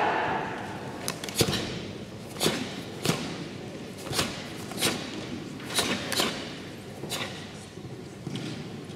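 Sharp snaps of karate gis and thuds of feet on the mats as three Shotokan karateka perform a kata in unison, about ten cracks at irregular intervals with some hall echo.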